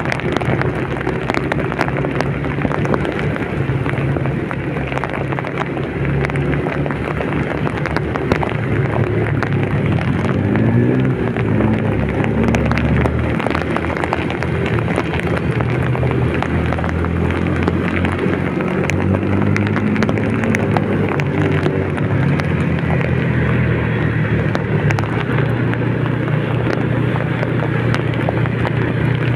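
A vehicle engine running on the move through heavy rain, with steady rain hiss and spatter over it. The engine pitch rises and falls about ten seconds in.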